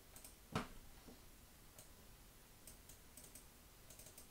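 Near silence broken by computer keyboard clicks: one clear click about half a second in, then a few faint key taps.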